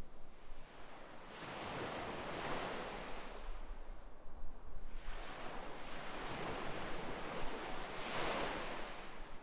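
Ocean waves washing onto the shore, swelling and fading away about three times.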